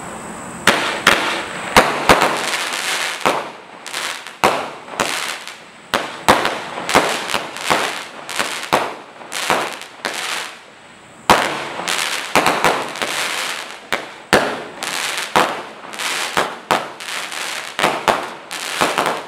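Lawman firework cake firing its shots in quick succession: a string of sharp launch thumps and bursts, roughly one to two a second, with crackle between them. The shots begin about a second in, and there is a short lull about halfway through.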